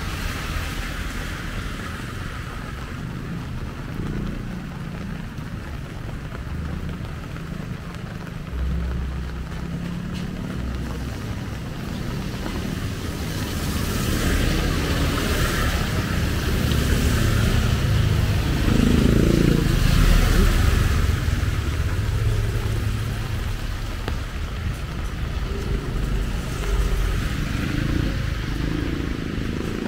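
Light rain hissing on a wet street, with motorcycles riding past on the wet road; the traffic grows louder, with one engine swelling loudest about two-thirds of the way through.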